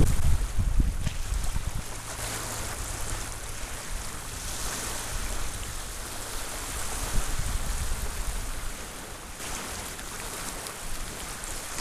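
Small waves lapping and washing onto a sandy, pebbly shore, a steady hiss that swells and eases. Wind rumbles on the microphone in the first second.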